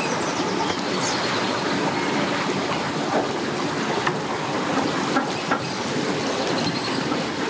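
A tow vehicle hauling a boat on its trailer up the ramp: a steady rolling rumble with a few light clanks.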